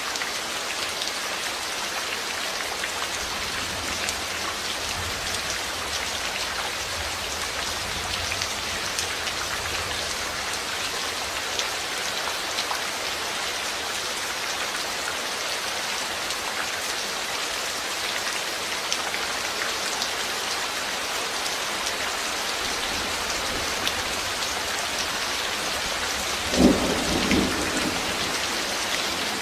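Steady rain falling, with a faint low rumble of thunder a few seconds in. Near the end comes a sudden loud double crack of thunder.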